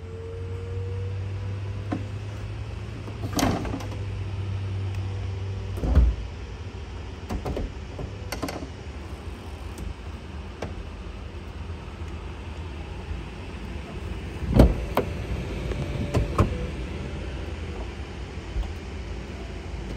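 BMW E93 335i's power retractable hardtop closing. The electro-hydraulic drive hums steadily for the first several seconds, with a run of clunks and thumps as the roof panels, trunk lid and latches move and lock. The loudest knocks come about six and fifteen seconds in.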